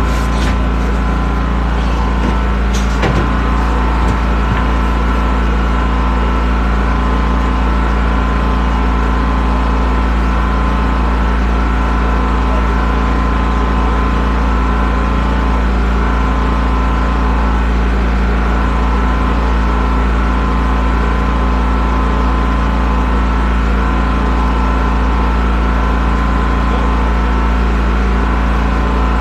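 Portable generator's engine running steadily at a constant speed, a loud unchanging drone with a strong low hum.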